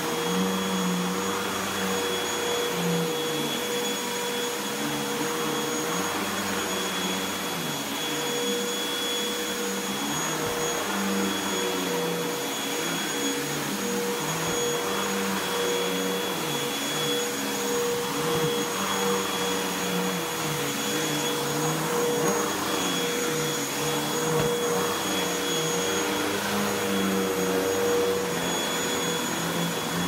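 Bagless upright vacuum cleaner running steadily on carpet: a constant motor hum with a high whine over even rushing airflow, as it is pushed back and forth.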